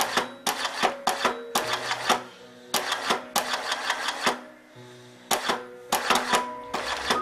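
Background music made of sharp percussive clicks, each followed by short pitched notes that change from one to the next, in an uneven rhythm about two to the second.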